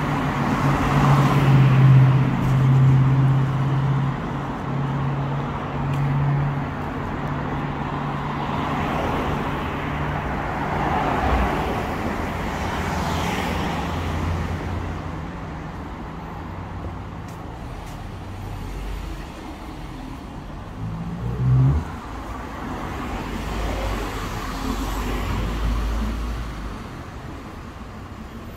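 Road traffic: cars passing one after another, their tyre noise swelling and fading. A steady low engine hum runs through the first several seconds, and a short, louder low note sounds about two-thirds of the way through.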